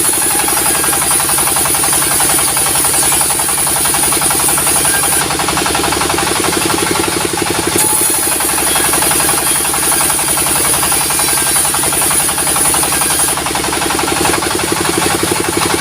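Diesel-driven sawmill running steadily with a fast, even engine chug. A high hiss comes in and drops out twice along the way.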